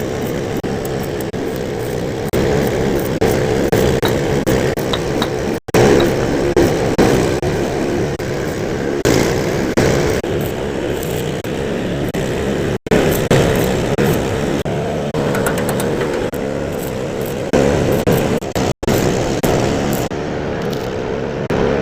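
Welding arc crackling and sizzling steadily, cut off briefly three times.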